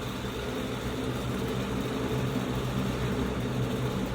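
A steady low mechanical hum with a faint hiss that does not change.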